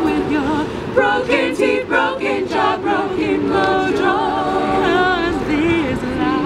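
Women's a cappella group singing: a lead voice with vibrato over steady held harmonies from the rest of the group.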